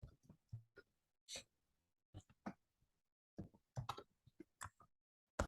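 Quiet, irregular clicking of a computer keyboard and mouse being worked, in loose clusters, with the loudest click near the end.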